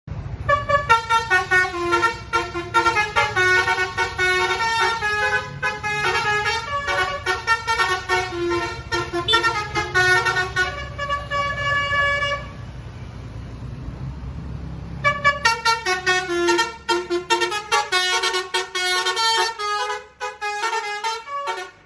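Bus 'telolet basuri' musical air horn playing a quick tune of shifting notes over a low steady rumble. The tune breaks off about halfway through and starts again a couple of seconds later.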